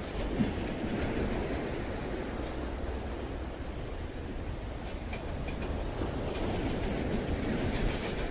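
Steady rush of waves breaking on the shore, mixed with wind rumbling on the microphone.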